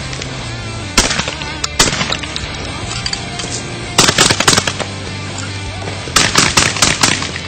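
Beretta A391 Xtrema 2 gas-operated 12-gauge semi-automatic shotgun firing: a single shot about a second in and another just before two seconds, then two rapid strings of several shots each, around four seconds in and again around six seconds in.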